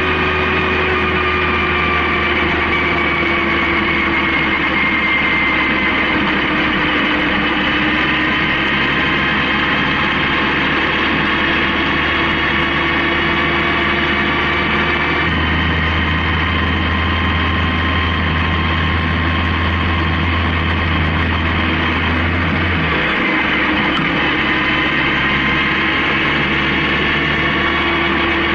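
Honda CB750K's air-cooled inline-four running at a steady cruise, its tone drifting slowly up and down with road speed over a constant rush of wind and road noise.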